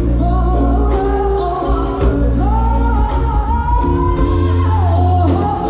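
Live amplified choir performance with band: a singing voice holds long notes that slide between pitches, over a steady bass line and a regular drum beat.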